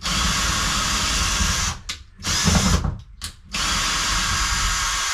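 Power drill running in three long runs with short blips of the trigger between, working at the screws of a boat's hatch lid.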